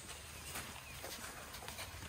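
Soft, irregular footfalls on a grassy dirt track as a herd of African elephants walks past close by, over a low steady rumble.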